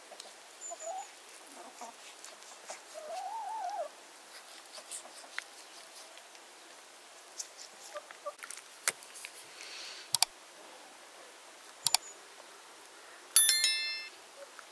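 A knife cutting raw liver on a plate, with a few sharp clicks of the blade against the plate, while birds and chickens call now and then. Near the end comes a loud, short electronic chime, the sound effect of an on-screen subscribe-button animation.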